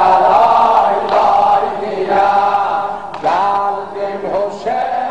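Many voices chanting together in long, held phrases: a mourning chant for Imam Hussein.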